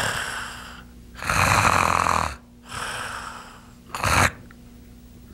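A man imitating loud snoring: two long rasping snores, each trailing off into a breath out, then a short snort about four seconds in followed by a pause in breathing. It mimics the snoring with stopped breathing of obstructive sleep apnea.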